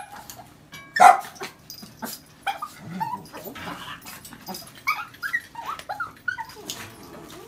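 A dog giving a sharp bark about a second in, then a run of short, high yips and whines.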